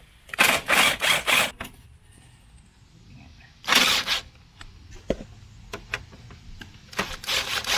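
Socket ratchet clicking in short bursts as a bolt is undone: about four quick bursts about a second in, one near the middle and a couple more near the end, with a few light ticks between.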